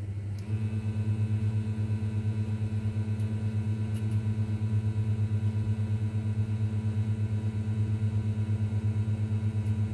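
Steady low hum, pulsing evenly several times a second.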